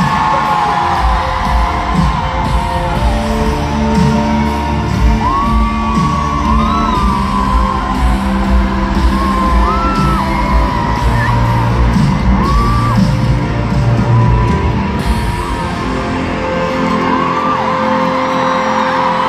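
Live pop-rock band playing loudly in an arena, with drums, bass and singing voices, heard through a phone's microphone, with fans nearby yelling and whooping. About three-quarters of the way through, the bass and drums drop away, leaving a held note.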